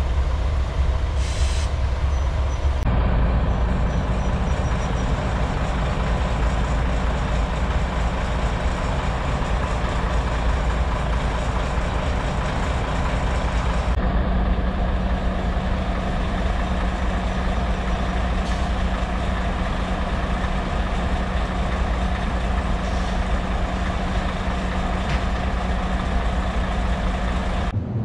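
Heavy diesel engines of a freight locomotive and rerailing machines running steadily. The sound shifts abruptly about three seconds in and again about halfway through, and a steady hum runs from then on.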